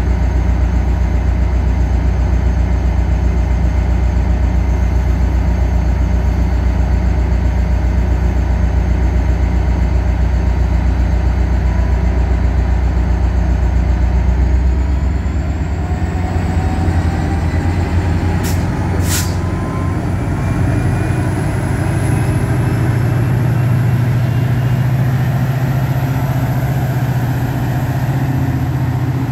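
Caltrain diesel-electric locomotive idling with a steady low hum. About halfway the engine note changes and slow rising whines climb as the train pulls away, with two sharp clicks a little after the change.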